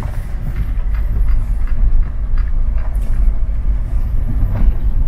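Land Rover Defender driving on a rough gravel track, heard from inside the cabin: a steady low rumble with scattered knocks and crunches from stones under the tyres.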